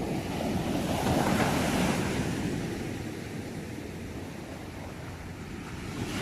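Ocean waves breaking and washing in: one wave swells to a peak a second or two in and ebbs away, and the next starts to build near the end.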